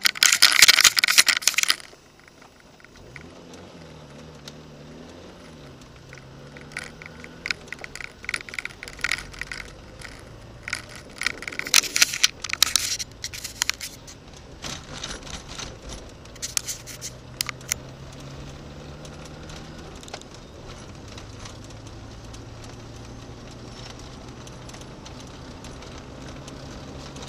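Car driving in town, heard from inside the cabin: a low engine hum that rises and falls a few seconds in, then runs steady. Loud clattering in the first two seconds and short bursts of clicking and clatter between about 7 and 18 seconds in.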